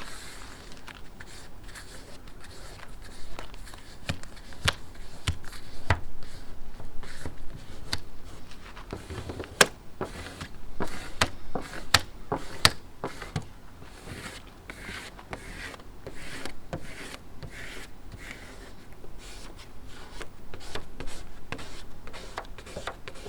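Vinyl decal being worked down onto window glass: rubbing and scraping over the pre-mask, broken by many scattered sharp clicks and taps.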